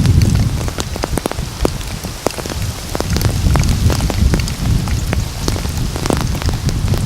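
Rain falling, with many sharp individual drops striking close by over a steady hiss and a low rumble that dips and swells.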